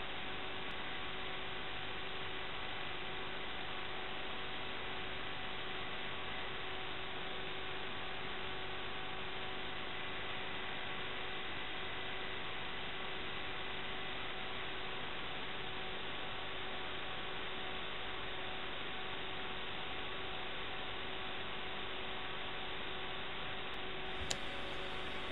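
Steady electronic hiss and hum with a few faint steady tones, the noisy audio of an analog FPV video link recorded to the DVR, unchanging throughout, with a couple of faint clicks near the end.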